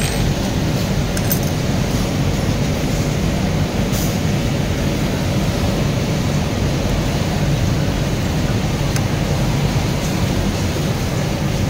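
Steady low rumble of background machinery and fans in a garment workshop, with a few faint clicks of metal parts being handled.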